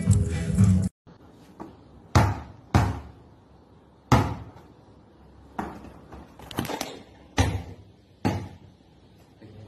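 A second of music cuts off abruptly. Then a basketball bounces hard, a string of sharp thuds spaced irregularly about half a second to a second and a half apart.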